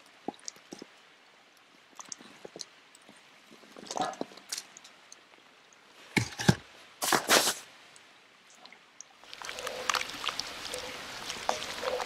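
Chopped vegetables scraped off a wooden cutting board into a simmering cast-iron Dutch oven, with a few loud knocks and splashes about six to seven and a half seconds in. Near the end a wooden spoon stirs the stew, scraping and lightly clinking against the pot.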